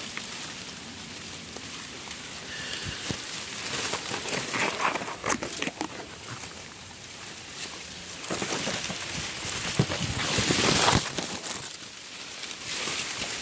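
Leaves and reed stems rustling and swishing as someone pushes through dense undergrowth, in uneven bursts with a few sharp cracks. The loudest stretch of rustling comes about three quarters of the way in.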